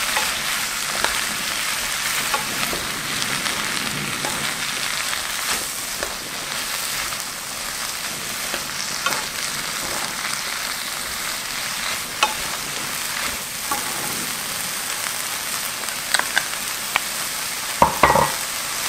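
Sweet potato stems being stir-fried in a pan, sizzling steadily as two wooden spoons toss them. Scattered clicks of the wooden spoons against the pan, with a few louder knocks near the end.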